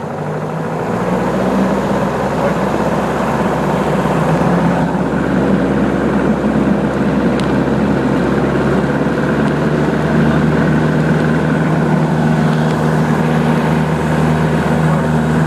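Grumman AA-5 Traveler's four-cylinder Lycoming engine and propeller heard from inside the cabin during the takeoff roll. The engine comes up to takeoff power over the first couple of seconds, then runs steady at full throttle.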